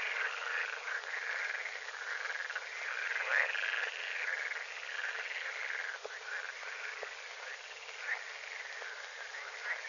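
A chorus of many pond frogs croaking together, their calls overlapping in a continuous din.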